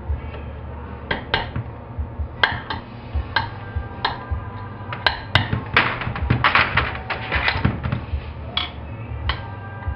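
Small hammer tapping on a chainsaw's crankshaft and crankcase to drive out the key, a run of irregular light metal-on-metal taps that come thicker and faster in the middle, some leaving a brief ring. A steady low hum runs underneath.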